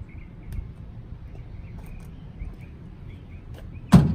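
A single sharp knock about four seconds in as the ABS-plastic wickerbill is pushed down against the VW Rabbit pickup's tailgate. Birds chirp steadily throughout, with a few small clicks of the plastic being handled.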